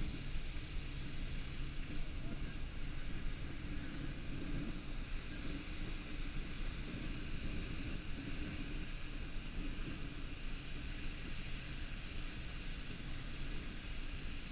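Fire hose streams spraying water fog onto a burning fuel fire: a steady rushing noise with a low rumble underneath.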